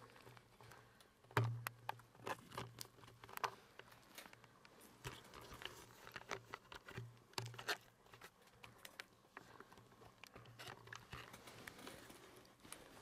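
Faint, irregular clicks, taps and rustling from a handheld camera being held and shifted, with a sharper knock about a second and a half in.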